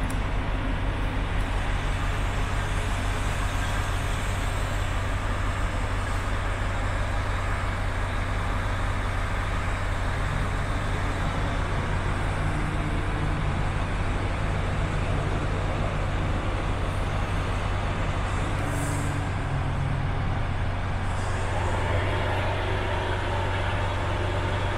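Volvo FH 500's 13-litre six-cylinder diesel idling steadily, heard from inside the cab as an even low hum. A higher hum joins in near the end.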